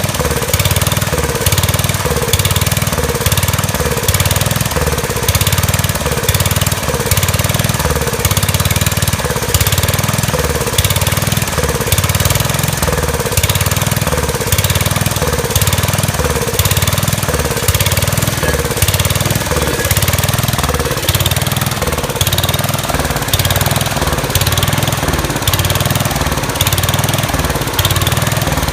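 Kohler K241 single-cylinder engine of a Gravely Commercial 10 walk-behind tractor running just after a carburetor rebuild, its speed swelling and dropping about once a second. The engine is surging, which the owner puts down, probably, to rust from the tank fouling the carburetor.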